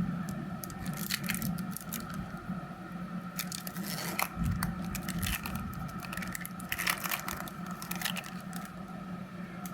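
Crinkling and tearing of a baseball card pack's wrapper as it is opened by hand, with scraping as the cards are handled, in short irregular crackles.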